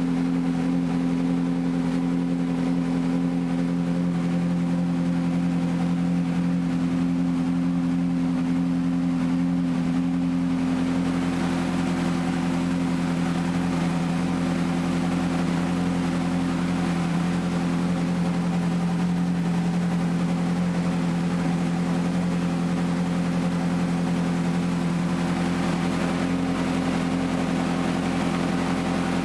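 Ferrari 458 Challenge's 4.5-litre V8 idling steadily at a constant pitch, with a slight change in tone about ten seconds in.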